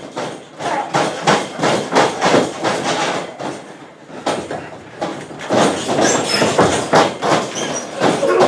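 A rapid, uneven run of thuds and slaps, several a second, from wrestlers' blows and bodies hitting each other and the ring mat during a brawl.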